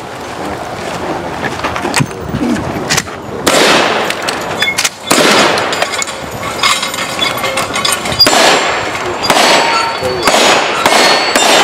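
A string of gunshots in a cowboy action shooting stage: loud shotgun blasts with long echoing tails through the middle, then quicker pistol shots near the end, hitting steel targets.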